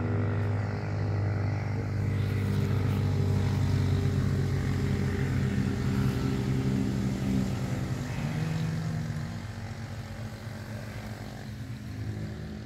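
A passing engine's steady drone, loudest through the middle and fading away over the last few seconds.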